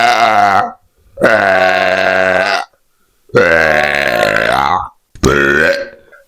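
A man's loud, drawn-out burps, recorded close on microphones and brought up by drinking water. One burp ends in the first moments, then three more follow with short silences between them, each lasting about a second or more. The last is shorter than the others.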